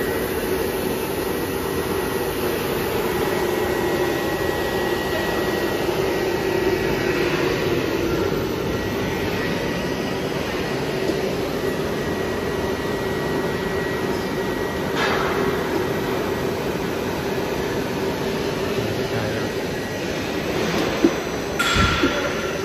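Running blown-film extrusion line with an inline flexographic printing press: a steady machine drone with a hum and a thin high whine. A short knock about fifteen seconds in and a few sharp clicks near the end.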